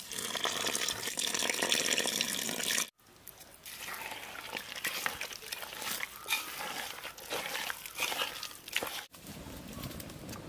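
Water poured in a steady stream into flour in an aluminium bowl for about three seconds. Then hands mixing and squeezing the wet flour into dough, a run of irregular squelches and small clicks, followed near the end by a fainter steady hiss.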